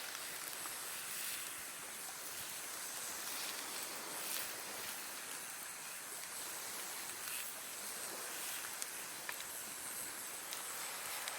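Campfire burning: a steady hiss with a few faint crackles.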